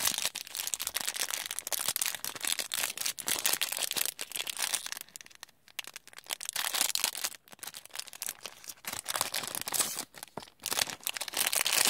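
Clear plastic toy packaging crinkling and rustling as it is handled and opened, with a short lull a little past the middle.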